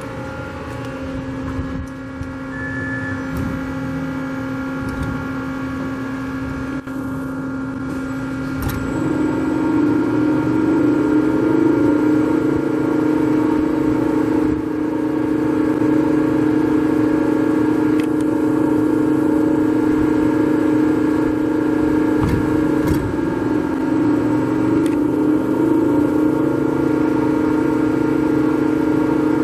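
Hitachi Seiki Hitec-Turn 20S II CNC lathe running its spindle, a steady motor hum and whine. About nine seconds in the pitch steps up and the sound grows louder, then holds steady at the higher speed.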